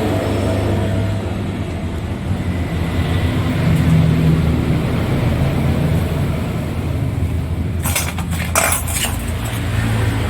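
An engine idling steadily with a low hum, and a few short metallic clinks about eight seconds in.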